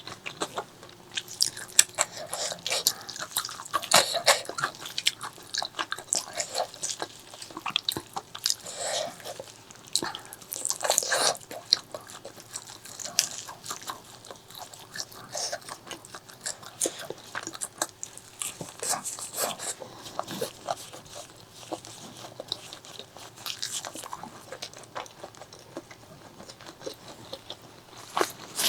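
A person eating spicy pork leg curry close to the microphone: irregular bites and chewing with many sharp, wet mouth clicks, in louder clusters every few seconds.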